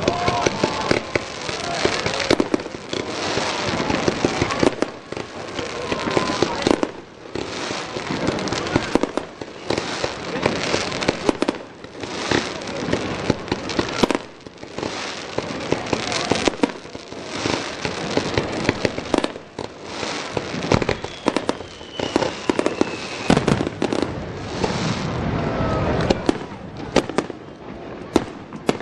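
Fireworks display: a dense, continuous run of bangs and crackling bursts in quick succession, with a few whistling glides among them.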